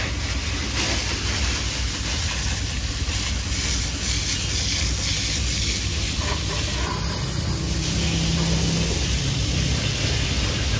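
A jet of water from a washing hose spraying and splashing over a motorcycle's bodywork, wheel and engine: a steady hiss, with a steady low hum underneath.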